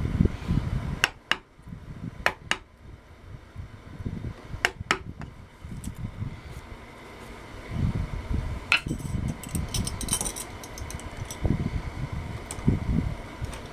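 A sharp hand chisel paring wood in small bites to fit a door hinge: scattered sharp clicks, several in quick pairs, over low knocks and thumps of handling. A short run of fine, light ticks comes about nine to ten seconds in.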